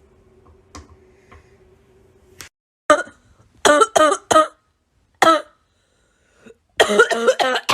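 A person's voice in short separate bursts, several from about three seconds in, running together near the end. Before them, a faint steady hum and a few soft clicks.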